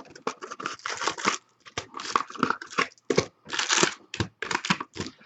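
Wrapping being torn and crinkled open on a sealed box of 2014 Bowman Draft baseball cards, in quick irregular rips and crackles.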